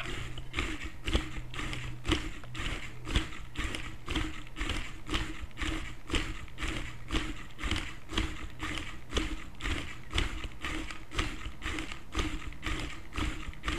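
Wooden stegosaurus kit automaton walking: its small battery-powered motor hums steadily while the geared wooden legs clack in a regular rhythm, about two to three clicks a second with a stronger knock roughly once a second. The hum and clacking stop right at the end.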